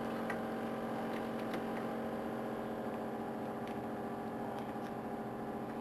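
A steady hum made of several pitched tones, with a few faint clicks and rustles from paper and electrical tape being pressed and smoothed onto a small box by hand.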